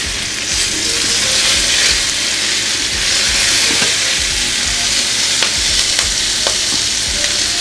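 Steady sizzling as wet, freshly washed kale is tipped into a hot pan of mushrooms frying in oil, with a few light clicks.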